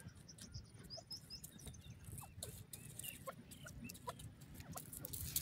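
Grey francolin foraging in dry straw: light rustling and pecking ticks, with many faint, short squeaky chirps.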